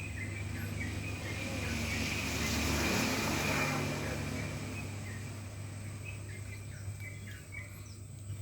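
Outdoor ambience: small birds chirping repeatedly in short falling notes, while a broad rushing noise, like a vehicle passing, swells to its loudest about three seconds in and then fades.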